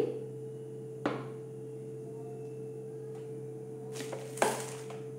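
Mustard oil being poured into a hot metal kadai, over a steady low hum. There is one sharp clink about a second in, and two brief hissing crackles around four seconds.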